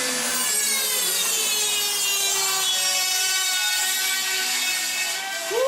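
Dremel rotary tool cutting, its high motor whine sagging in pitch as it bites into the cut, then holding steady.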